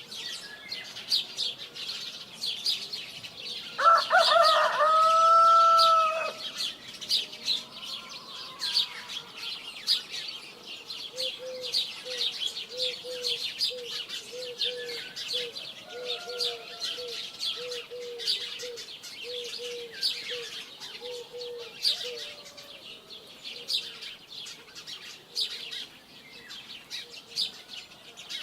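Small birds chirping continuously. A rooster crows once, loudly, about four seconds in. Through the middle comes a steady run of short, low clucks.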